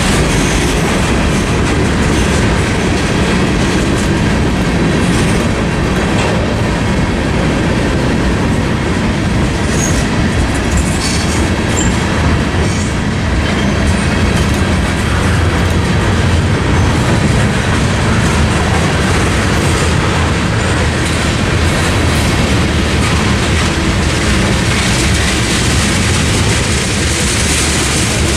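Freight cars of a CSX mixed freight train rolling past, making a loud, steady rumble of steel wheels on the rails.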